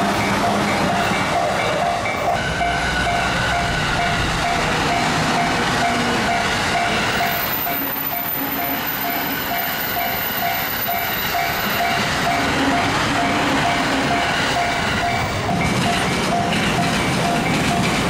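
Japanese railway level-crossing alarm ringing its rapid, evenly repeated warning tone while trains run past on the tracks.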